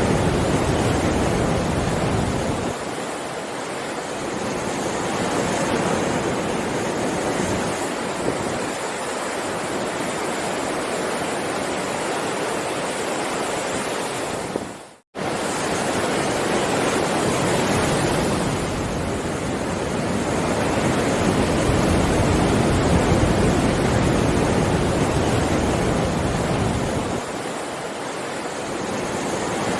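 Heavy ocean waves breaking and washing ashore in a continuous dense rush, swelling and easing every few seconds. The sound cuts out to silence for an instant about halfway through.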